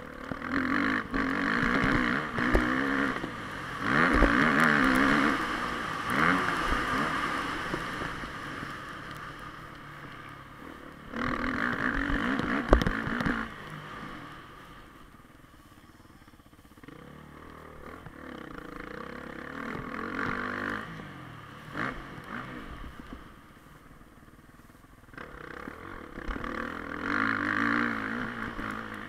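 Dirt bike engine heard close up from the bike, revving hard in repeated bursts of throttle and falling back between them as the rider accelerates and eases off around the track. A few sharp knocks come through over the engine.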